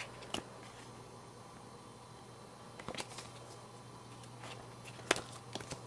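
Printed paper leaflets being handled and flipped open: a few short, crisp paper clicks and rustles, spaced a second or more apart, over a faint steady low hum.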